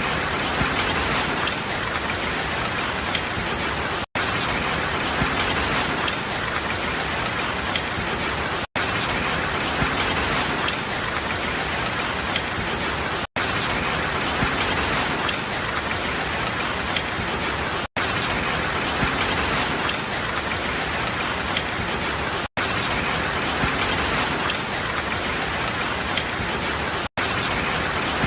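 Steady rain: a dense, even hiss of rainfall with occasional louder single drops. The sound cuts out for an instant about every four and a half seconds.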